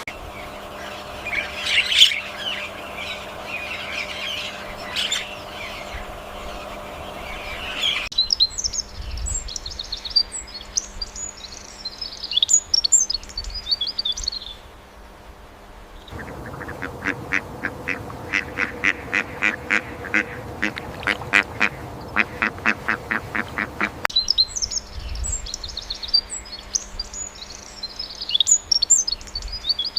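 A string of animal call recordings. High, quick bird chirping comes in twice, and between the two stretches an animal gives a rapid, even series of calls, about seven a second, that sounds like quacking.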